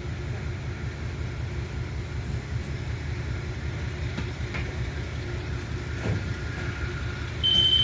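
Train running with a low, steady rumble. Near the end a loud steady high-pitched tone sets in.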